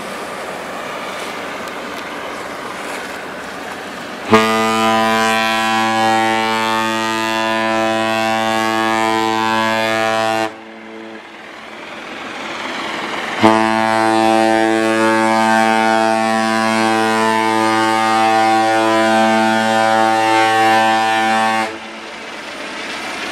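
Tall ship's horn sounding two long, steady blasts on one low note, the first about six seconds long and the second about eight, with a short gap between them.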